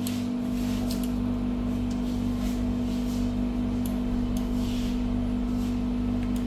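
Steady electrical hum, with a low tone pulsing about twice a second and scattered faint clicks.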